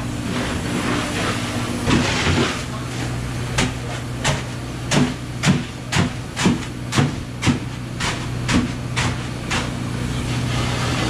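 A run of about a dozen sharp knocks, roughly two a second, over a steady low hum.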